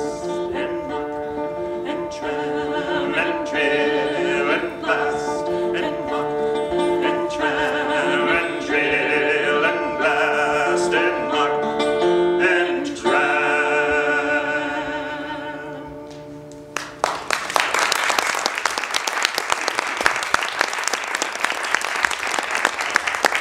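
Acoustic folk band playing the closing instrumental bars of a song, plucked guitar under held melody notes, dying away a little over halfway through. Then an audience applauding to the end.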